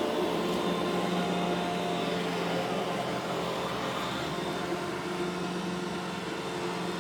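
iRobot Roomba E5 robot vacuum running, a steady mechanical hum.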